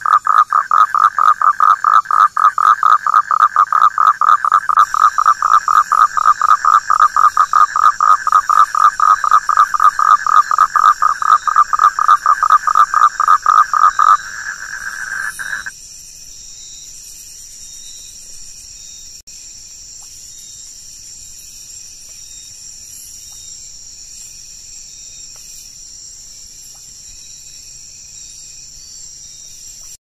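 A frog calling in a long, rapid run of short repeated notes, about four a second, over a steady high-pitched background chorus. The frog's call stops about fifteen seconds in, leaving only the quieter high chorus.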